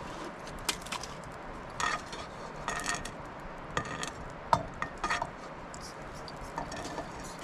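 A wooden spatula stirring in a black wok over a wood fire, giving irregular scrapes and knocks against the pan, a few clustered together and the sharpest about four and a half seconds in.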